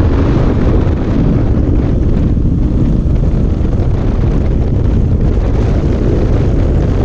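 Heavy wind buffeting on the camera microphone as a Suzuki DR-Z400SM supermoto rides at speed. The bike's single-cylinder engine runs steadily under the wind.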